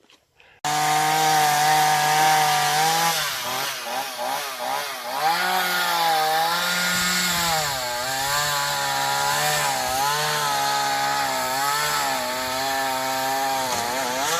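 Chainsaw engine running and cutting wood. It starts abruptly about half a second in, and its pitch dips and rises repeatedly as the saw loads in the cut.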